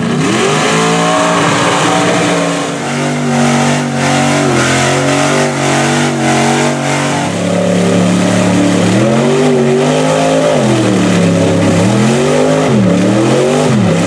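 A mud truck's engine revving hard under load as it drives through a deep mud pit. The pitch holds steady for several seconds, then dips and climbs again in quick swoops near the end.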